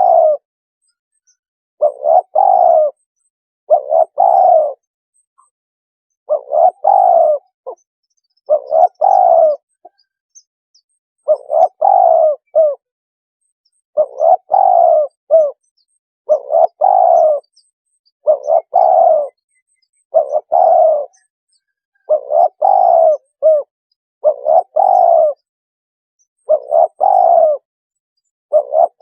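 Spotted dove cooing: a short multi-note coo phrase repeated about every two seconds. The recording is a lure call used to draw wild spotted doves in.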